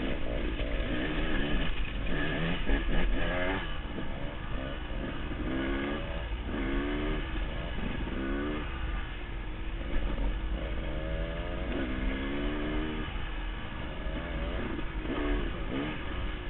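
Dirt bike engine revving up and down, its pitch climbing and falling back several times as the throttle is worked, over a constant low rumble of wind on a helmet-mounted microphone.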